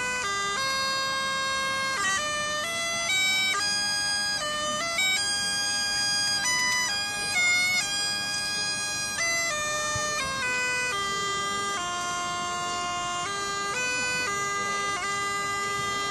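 Bagpipes playing a tune: a melody of held notes stepping up and down over a steady drone.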